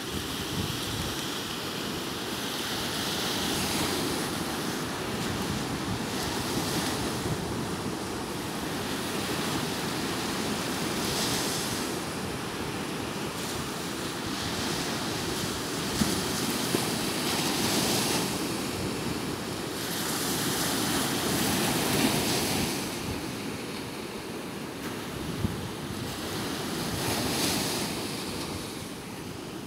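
Small sea waves breaking and washing up a sandy beach, the hiss of the surf swelling every several seconds as each wave comes in, with wind noise on the microphone.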